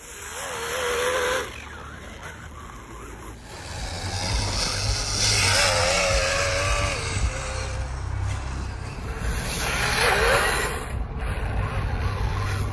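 The motor of a radio-controlled snowmobile whining as it drives through snow, rising and falling in pitch in three runs with a hiss of churned snow. A low rumble of wind on the microphone runs under it from a few seconds in.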